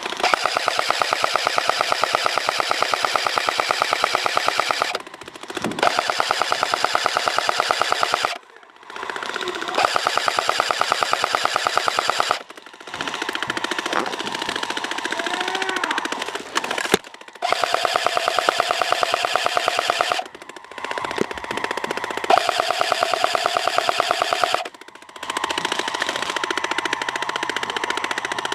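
Airsoft M249 SAW firing long full-auto bursts of rapid, evenly spaced shots, about seven bursts of three to five seconds each with short pauses between them.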